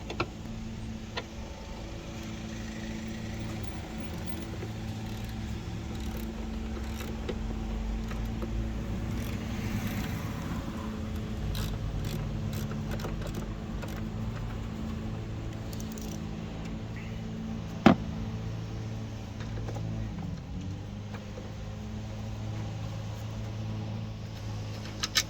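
Sparse metallic clinks of hand tools working on a car's front strut mounting, with one sharp metal knock about two-thirds of the way through, over a steady low hum.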